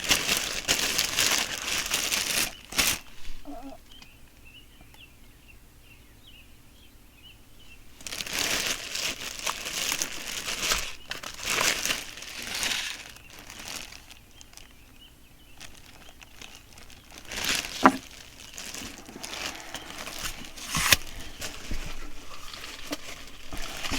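Packaging crinkling as items are handled and unwrapped. It comes in bursts with quieter gaps, and two sharp clicks come later on.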